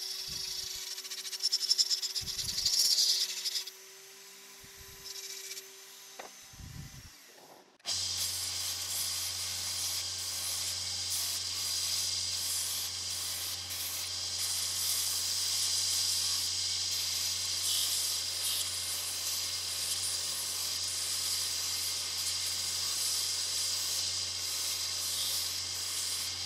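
A handheld rotary tool with a carbide burr runs with a steady whine while grinding into an olive-wood spoon, the scratchy grinding loudest in the first few seconds. About eight seconds in this gives way to a disc-and-belt sanding machine running with a steady low hum and an even hiss, the spoon being sanded on its disc.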